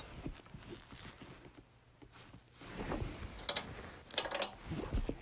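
Quiet handling of metal wrenches: a sharp click at the start, then a few faint, scattered clinks and rustles as 17 mm and 19 mm wrenches are picked up for the rear axle nuts.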